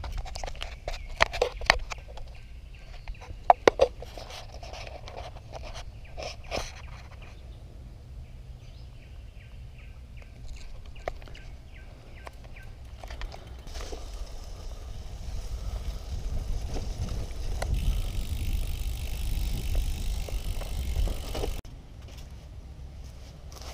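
Wind rumbling on an action camera's microphone while a road bicycle rolls along a concrete lane, with sharp clicks and rattles in the first several seconds. The rumble grows louder later on, then cuts off abruptly near the end, leaving a quieter background.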